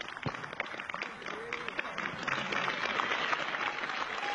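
A sharp knock just after the start, then a crowd of spectators clapping and calling out, the applause swelling from about two seconds in.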